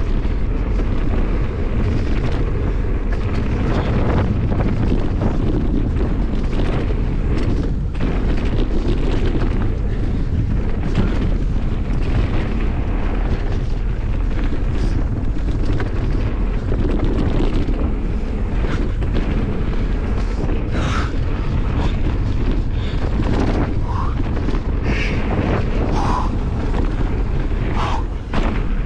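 Wind buffeting an action-camera microphone on a Merida Big Trail 500 hardtail mountain bike riding down a dirt and gravel trail, over steady tyre rumble and scattered knocks and clatter from the bike jolting over stones.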